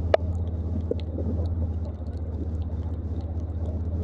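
Vehicle engine running steadily, a low pulsing hum, with one sharp knock just after the start.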